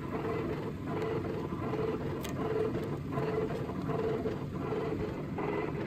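Machinery of a running flywheel generator rig, electric motor and flywheels turning: a steady low hum with an even throb about two and a half times a second.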